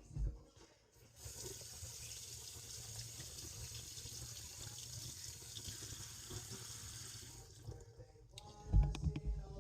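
Kitchen tap running into the sink while hands are washed under it: a steady rush of water that starts about a second in and is shut off after about six seconds. A few loud knocks follow near the end.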